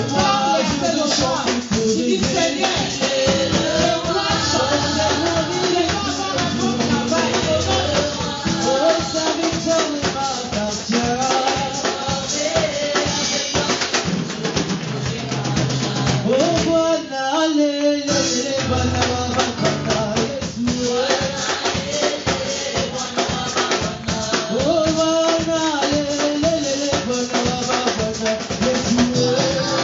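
Live church worship music: a women's choir singing a song into microphones over drums and percussion. The drums and bass drop out for about a second midway while the singing carries on.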